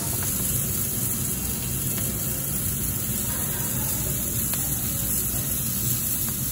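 Ribeye, lamb chops and pork belly cooking on a tabletop grill, giving a faint steady sizzle over an even low background rumble.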